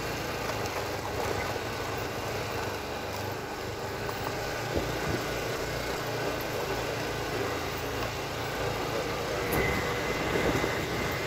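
Motorcycle running at riding speed, its engine mixed with steady wind and road rumble on the microphone.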